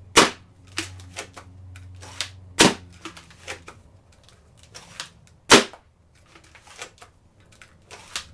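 Homemade PVC pumpsnap dart blaster firing three times, a sharp snap every two and a half to three seconds, with lighter clicks and clacks between the shots as it is pumped and primed.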